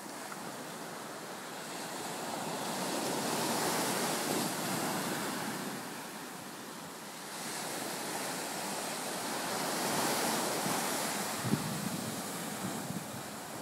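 Ocean surf breaking on a sandy beach, a steady wash of waves that swells louder twice as sets come in. Wind buffets the microphone now and then, with a few low thumps near the end.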